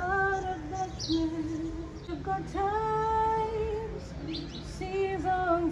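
A song with a woman singing sustained, wavering notes, the longest held for over a second in the middle.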